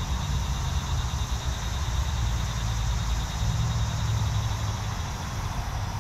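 Steady low outdoor rumble that flutters slightly in level, with a faint, pulsing high buzz above it.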